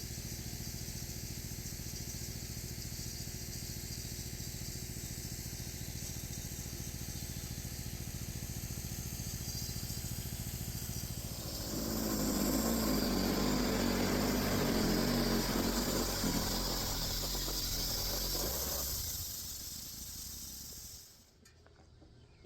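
Gas-engine band sawmill running steadily while its blade cuts along a pine log. About halfway through it grows louder and rougher for several seconds, then fades and stops abruptly shortly before the end.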